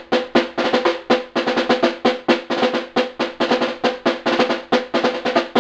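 Snare drum played with sticks: a quick, even pattern of sharp strokes, about seven a second, each ringing with a clear pitched tone.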